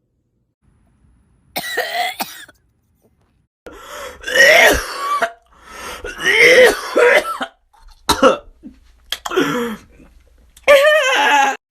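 A person coughing and clearing their throat in about six separate loud bursts, starting about a second and a half in, some of them with a pitched, voiced edge.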